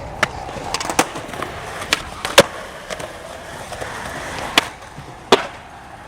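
Skateboard rolling on pavement, wheels making a steady rolling noise, broken by about six sharp clacks of the deck and trucks striking the ground; the loudest clack comes about two and a half seconds in.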